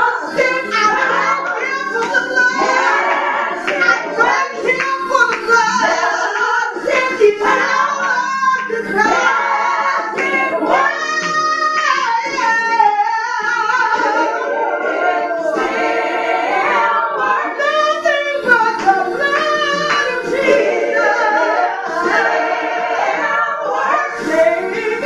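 A small group of singers, mostly women, singing a gospel song together.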